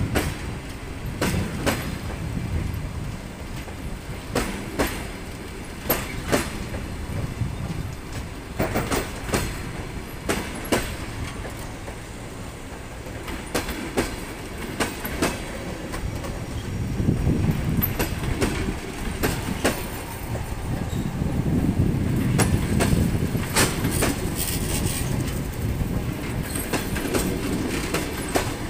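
Passenger coaches of a departing train rolling past at low speed: a steady rumble from the wheels and bogies, with sharp irregular clicks and clacks as the wheels cross rail joints. The rumble swells in the second half.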